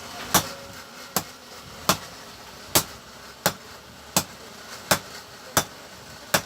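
Blacksmith's hammer striking metal in a steady rhythm, about nine blows at a little over one a second.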